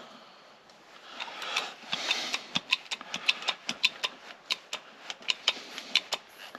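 Handheld hydraulic crimping tool being pumped to crimp a lug onto a battery cable: a quick run of sharp, ringing clicks, about four or five a second, starting about two seconds in, after some handling rustle.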